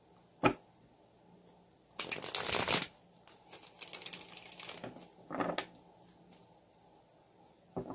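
A tarot deck being handled and shuffled: a quick run of rapid card flicks about two seconds in, the loudest part, followed by lighter card rustling. A single click comes before it, and a short thump of cards being knocked together follows.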